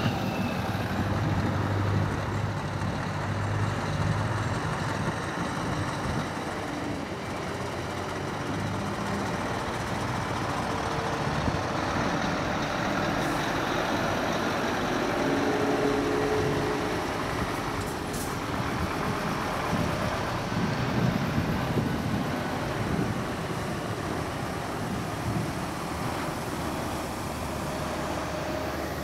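Heavy trucks' diesel engines running as the trucks drive past, over a steady wash of traffic noise.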